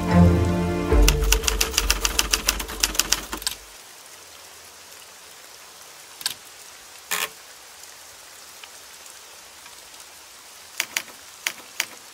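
Manual typewriter keys striking: a fast run of clicks over music with a deep bass that stops about three and a half seconds in. Then come single key strikes with pauses between them, two around six and seven seconds in and three in quick succession near the end.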